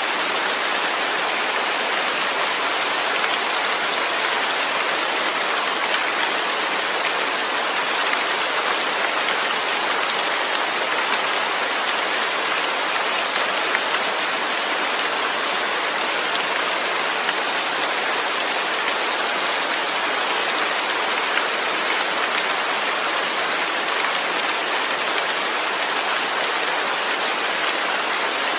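Steady rain falling, an even hiss of many drops with faint scattered patter, unchanging throughout.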